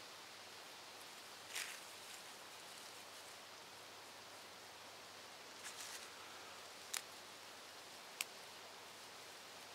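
Faint rustling and crackling of dry dead pine needles as hands gather and press them into a tinder bundle, over a steady soft hiss. Two sharp clicks come in the second half.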